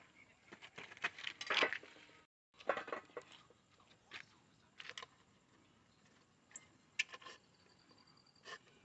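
Scattered clicks, taps and light knocks of hand tools and small parts being handled during work on a motorbike headlight.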